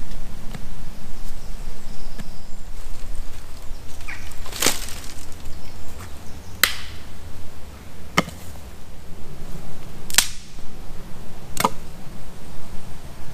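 Dry twigs and sticks being snapped by hand to lay a fire base: five sharp cracks, one to two seconds apart, starting about four seconds in, over a steady low rumble.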